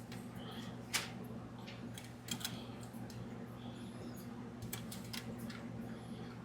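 Faint scattered clicks and ticks of a spoke wrench and spokes as a laced BMX wheel is tensioned by hand, over a steady low hum.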